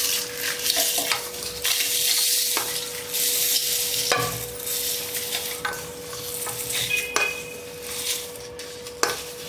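Roasted niger seeds and dried red chillies poured from a steel pan into a steel mixer-grinder jar, with a wooden spatula pushing them over the rim. The sound is a dry, hissing rattle of seeds that swells and fades, with light scrapes and taps of the spatula on steel.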